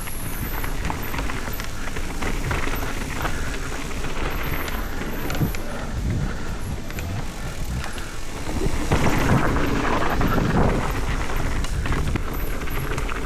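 Mountain bike rolling down a dirt bike-park trail: steady tyre and rattle noise over the ground, louder from about nine seconds in.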